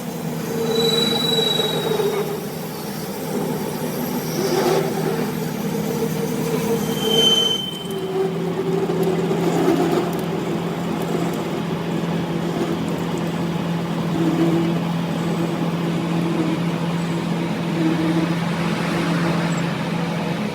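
A machine motor running with a steady hum, with brief high-pitched metallic squeals about a second in and again around seven seconds in.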